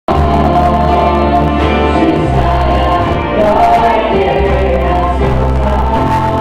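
Live worship song: a man singing into a microphone over a strummed acoustic guitar, with a woman's voice singing along and a steady low bass line changing notes every second or two. The music begins abruptly, mid-song.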